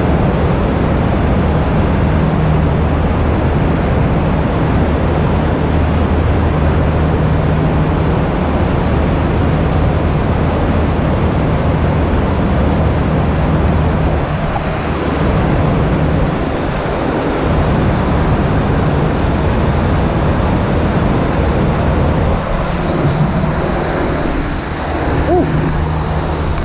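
Steady, loud rush of water from a FlowRider Wave Oz 360 surf machine, its fast sheet of water pumped up the padded slope into foam, with a low steady hum underneath.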